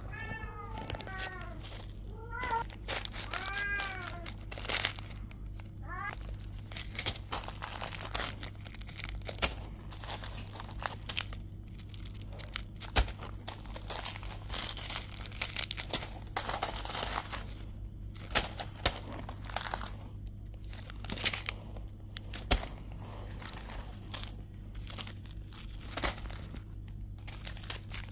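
Plastic packaging crinkling and rustling as a plastic mailer bag and small clear plastic bags of beads are handled, in many quick crackles, over a steady low hum. A cat meows a few times, short rising-and-falling calls, in the first six seconds.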